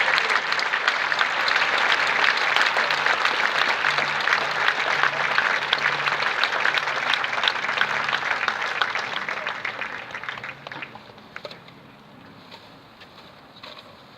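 Crowd clapping steadily, then the applause thins and dies away about ten seconds in, leaving only a few scattered claps.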